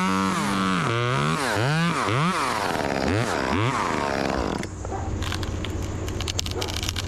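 Gas chainsaw running, its engine pitch dropping and rising again several times as the throttle is worked, then cutting off abruptly about four and a half seconds in. After that only a quieter steady low engine hum with scattered crackles remains.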